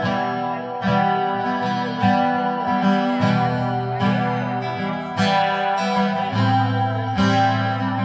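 Acoustic guitar strummed in an instrumental passage of a song, a chord struck about once a second and left ringing.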